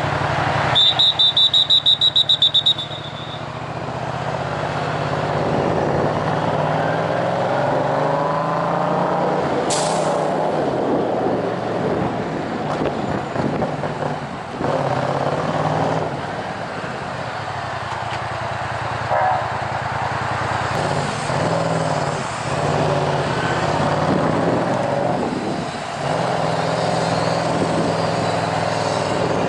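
The 2014 Yamaha MT-07's parallel-twin engine runs through a Tiger full exhaust system with decat headers, a low exhaust note that rises and falls with the throttle in stop-and-go traffic. About a second in, a loud shrill pulsing tone sounds for about two seconds, roughly five pulses a second. About ten seconds in there is a short hiss.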